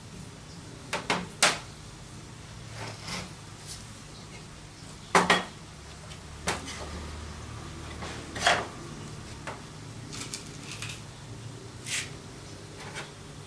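Irregular metallic clinks and knocks of small metal parts being handled, about a dozen spread unevenly, the sharpest about a second and a half in and about five seconds in.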